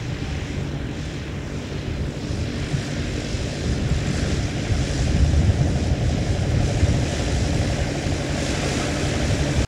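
Arion Lightning light-sport airplane's piston engine and propeller running as it taxis, a steady drone that grows a little louder about halfway through.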